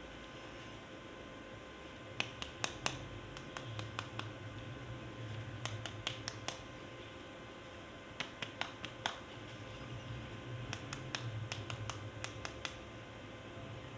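Groups of quick, sharp clicks and taps from hard plastic toy parts or packaging being handled, five bursts of a few clicks each, over a low steady hum.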